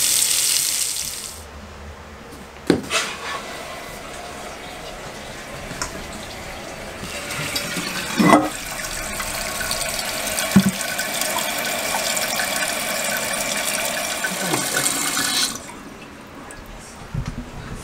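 Water rushing from a newly installed bathroom faucet into the sink, shut off after about a second and a half. Then a toilet tank filling through its fill valve with a steady hiss of running water, broken by a few knocks, that grows louder and stops abruptly near the end as the fill valve shuts.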